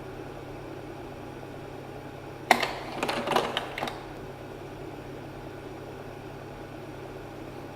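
Slide projector running, its cooling fan a steady hum, with a sharp clack about two and a half seconds in followed by a short mechanical clatter as the slide changes.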